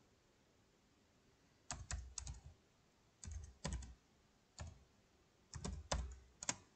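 Computer keyboard keys clicking as a web address is typed, in four short runs of keystrokes with pauses between them.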